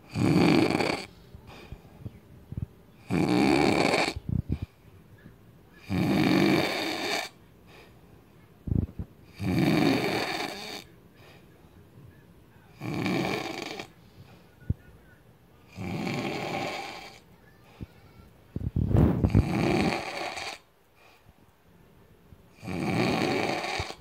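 A man snoring loudly in his sleep: a snore about every three seconds, each lasting roughly a second, eight in all.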